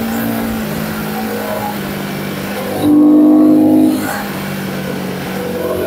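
Royal Enfield Guerrilla 450's single-cylinder engine pulling at speed in fourth gear under throttle. A vehicle horn sounds for about a second midway.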